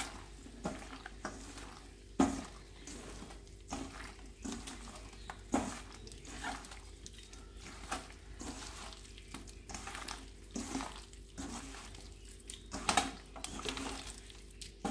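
Hand mixing raw chicken pieces into a thick marinade of cornflour, flour, egg and chilli powder in a steel bowl: irregular wet squelches and squishes, with occasional knocks against the bowl, over a steady low hum.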